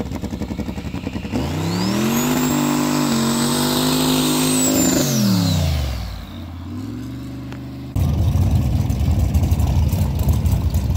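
Fourth-generation Chevrolet Camaro passing at high speed, about 115 mph: its engine note swells in over a couple of seconds, holds steady with a high whine above it, then drops in pitch as it goes by and fades. About eight seconds in, it switches abruptly to the loud, rough rumble of engines idling at a drag strip starting line.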